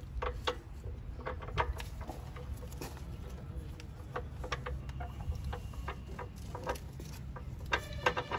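A hand wrench clicking and tapping against the metal fittings of a diesel engine, in short irregular knocks about one or two a second, over a steady low rumble.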